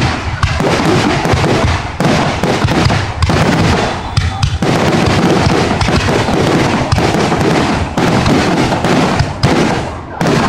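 Aerial fireworks display: shells bursting in a rapid, nearly continuous barrage of overlapping bangs, easing briefly about four seconds in.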